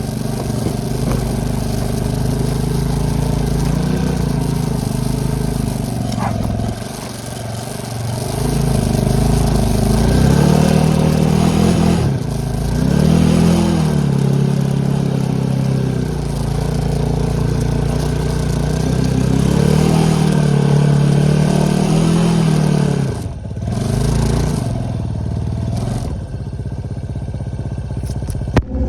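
ATV engine running under load, its pitch rising and falling again and again as the throttle opens and closes. It drops off briefly twice, about seven seconds in and again near the end, when the throttle is let off.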